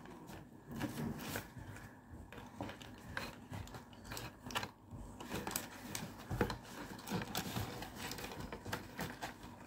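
Hands handling a toy's packaging: scattered clicks, rubs and rustles at irregular intervals as ties and plastic are worked loose.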